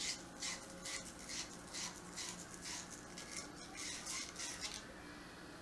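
Sandpaper rubbed back and forth over the freshly cut end of a copper pipe to clean up the cut: short scratching strokes, about two or three a second, stopping near the end.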